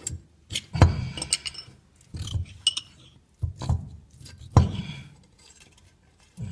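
Metal clinking and knocking as a small metal tool is worked inside a safe to try to hook the lock: about five sharp knocks with bright metallic clinks between them.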